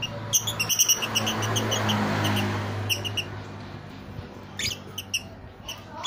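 Lovebirds chirping in short, sharp, high-pitched calls: a quick run of chirps near the start, then further short bursts around three seconds and five seconds in. A steady low hum and a swell of rushing noise in the middle lie underneath.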